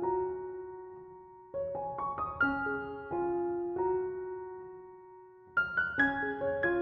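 Background piano music: a gentle repeating phrase of struck notes that ring and fade, starting again every couple of seconds.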